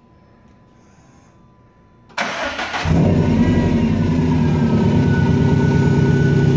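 2016 Subaru WRX STI's turbocharged 2.5-litre flat-four (EJ257) cranked by the starter about two seconds in, catching in under a second and settling into a loud, steady idle.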